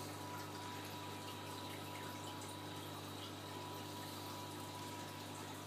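Marine reef aquarium running: a steady low hum from its pumps with the even wash of circulating water.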